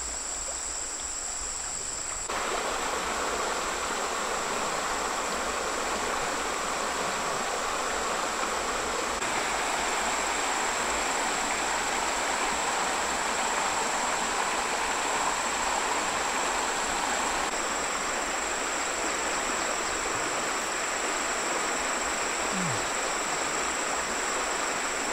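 Shallow stream rushing over rocks, a steady noise of flowing water that grows louder about two seconds in. A thin, constant high-pitched insect trill runs over it.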